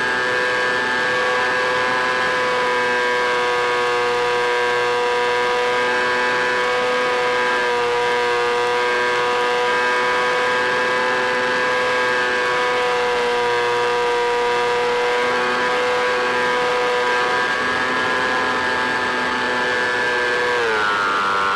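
EasyStar RC plane's electric motor and propeller running with a steady whine at cruise throttle over a rushing haze, the pitch dropping about 21 seconds in as the throttle is eased back.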